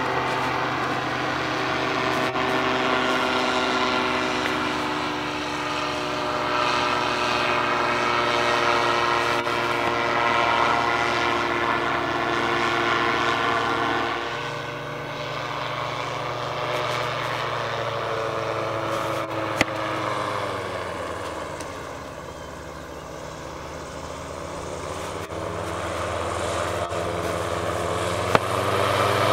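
Powered parachute's engine and propeller running steadily in flight overhead. The pitch and loudness fall about two-thirds of the way through, then build again near the end as it comes back closer. Two brief sharp clicks are heard late on.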